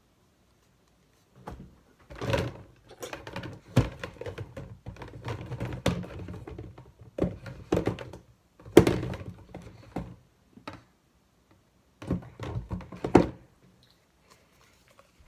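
Irregular knocks, thuds and scraping as objects are handled and set down, with a few sharper knocks standing out.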